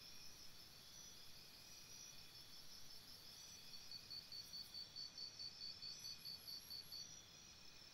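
Faint chirping of crickets, several insects at slightly different pitches, each in quick regular pulses of about four or five a second.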